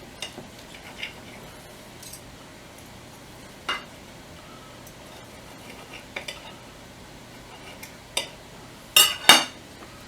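Knife and fork clinking and scraping against a plate while cutting off a piece of breaded chicken: scattered short clicks, with two louder clanks close together near the end.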